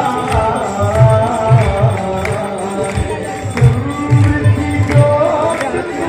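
Devotional aarti song: a singer's wavering, ornamented melody over a regular drum beat.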